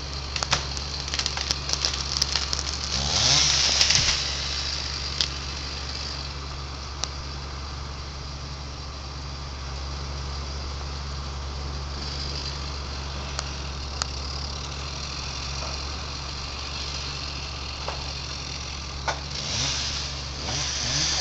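Engine idling steadily, revved briefly about three seconds in and again near the end, with crackling alongside the revs.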